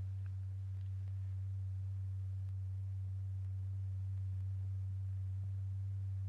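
Steady low pure tone held unchanged: the audible sine tone driving a paper diaphragm to make lycopodium powder clump and circulate.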